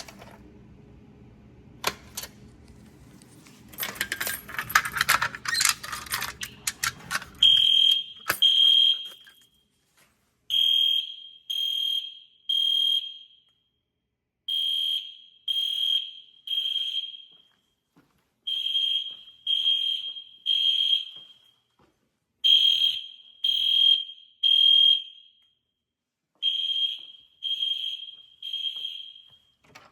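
EST Genesis fire alarm horns sounding the temporal (Code 3) evacuation pattern during an alarm test: three short blasts of a loud, high steady tone, a pause, then again, starting about seven seconds in. Before the horns start there is a low hum with clicks and a stretch of noise.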